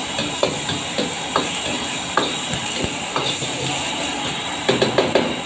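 Chopped garlic, shallots and chillies sizzling in hot oil in a wok, with a metal ladle scraping and knocking against the wok as they are stir-fried. The knocks come irregularly, with a quick run of them near the end.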